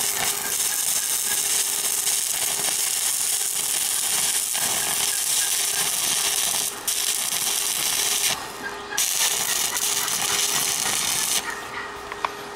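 Stick welding arc crackling and sizzling steadily while a crack in old farm equipment is welded. The arc breaks off briefly twice in the middle and stops near the end.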